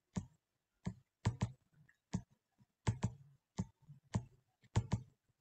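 About a dozen sharp computer clicks from a mouse and keyboard, many in quick pairs and spaced irregularly, as answer numbers are put into boxes on screen.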